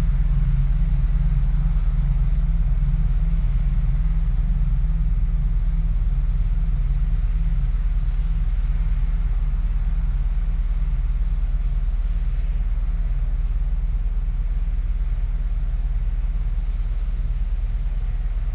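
Deep Chapel Temple wind chimes ringing, their low overlapping tones slowly fading.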